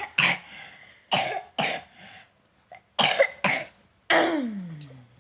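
A young child coughing about six times in short, sharp bursts, mostly in pairs. The last cough trails off into a falling voiced sound.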